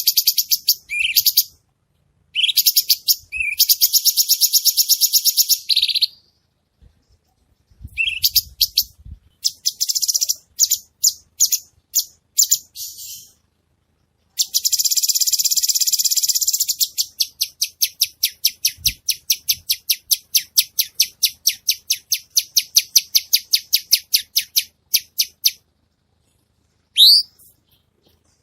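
A cucak cungkok leafbird singing in rapid-fire 'tembakan' trills: bursts of very fast, high repeated notes, some brief and some several seconds long. About halfway a long trill breaks into a run of separate chirps for several seconds, and near the end there is a short rising whistle.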